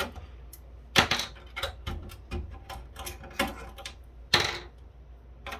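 Hex standoffs being unscrewed and handled on a circuit board in a metal chassis: scattered small metal clicks and clatter, with a sharp click about a second in and a longer noisy click about four and a half seconds in.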